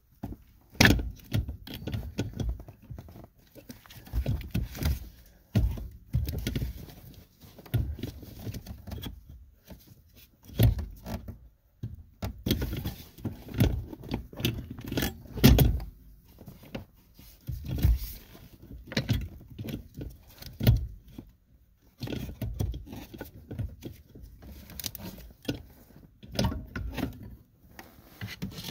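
Irregular knocks, clunks and rattles of hand work under a car's dashboard: a clutch master cylinder and its loosened pedal assembly being wiggled and pulled free.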